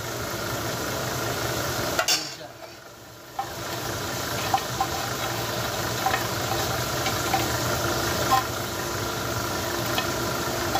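Chicken wings in buffalo sauce sizzling in a frying pan over a gas burner while being stirred and tossed, with occasional sharp clinks of utensil and pan. A couple of seconds in, a louder knock is followed by a brief drop in the sizzle.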